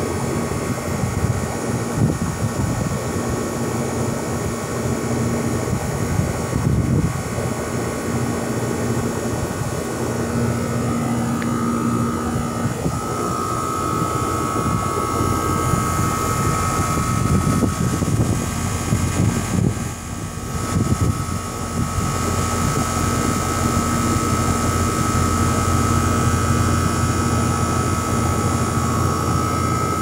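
Outdoor air-conditioner condenser unit running: a steady rush of fan air with a hum and a high whine.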